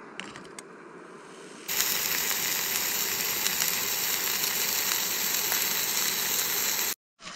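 Steak sizzling in a hot frying pan: a loud, steady hiss that starts abruptly a little under two seconds in and cuts off shortly before the end.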